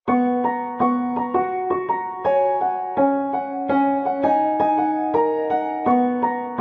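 Background music: a keyboard plays a light melody of short, evenly paced notes over held lower notes.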